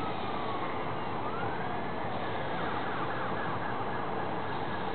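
Faint emergency-vehicle siren wailing, its pitch sliding down and then back up, with a brief rapid warble about three seconds in, over a steady hiss.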